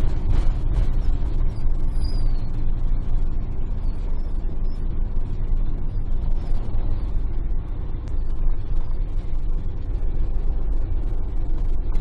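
Campervan driving along a road, heard from inside the cab: a steady low rumble of engine and tyre noise.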